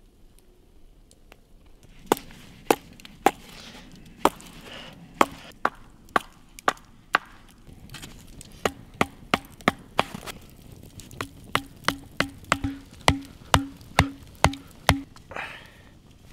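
Repeated sharp blows of a tool into wood, starting about two seconds in. They are irregular at first and then come about two or three a second, the later blows each ringing briefly.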